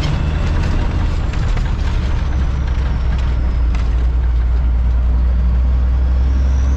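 Heavy diesel truck's engine running steadily, heard from inside the cab as a loud low drone, with faint light rattles over it.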